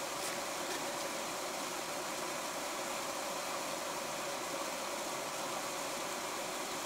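Portable gas camping stove burning with a steady hiss while food cooks on it.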